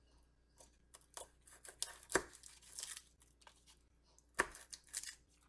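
Garlic cloves being skinned with a knife over a plate: dry papery skin crackling and tearing in irregular bursts, with sharp clicks of the knife, the loudest about two seconds in and again past four seconds.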